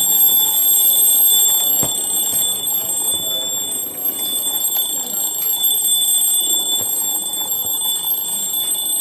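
A battery-powered quartz table alarm clock's alarm sounding continuously in a steady, shrill, high-pitched ring. There is a single light knock from the clock being handled about two seconds in.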